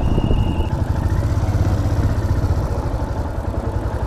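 A small engine idling steadily with a fast, even low pulse, with a short high beep right at the start.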